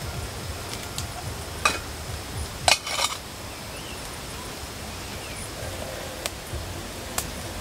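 A few sharp clinks of a utensil against a metal cooking pot over a campfire, the loudest a quick cluster about three seconds in.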